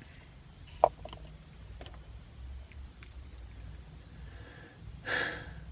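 A pause in a man's talk filled with his own small mouth sounds over a low steady hum: a sharp click about a second in, a few faint clicks after it, and an audible breath near the end.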